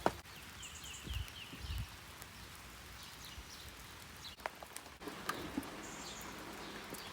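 Quiet outdoor ambience of light rain: scattered dripping taps, two soft low thumps about a second in, and a short run of faint high chirps.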